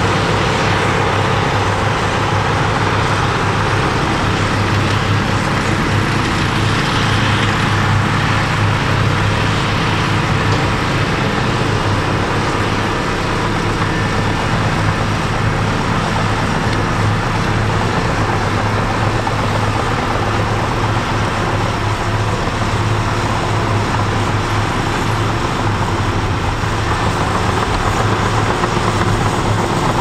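Cat D6N bulldozer's diesel engine running steadily under work, a loud, even low hum with no pauses or changes.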